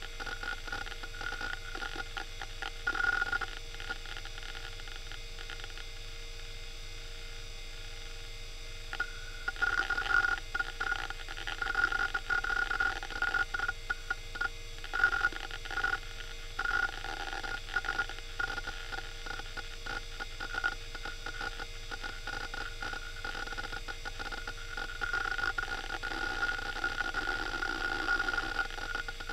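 Western Digital Caviar 21200 hard drive running with a steady high whine and clicking seek chatter. The chatter is sparse for the first few seconds, then turns busy in bursts from about nine seconds in. The drive has many scattered bad sectors.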